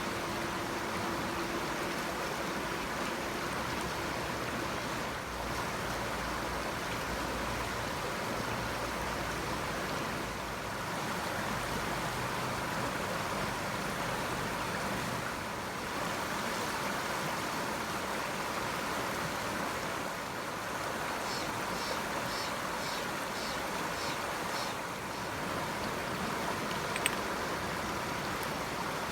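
Running water: a steady, even rush with slight swells every few seconds.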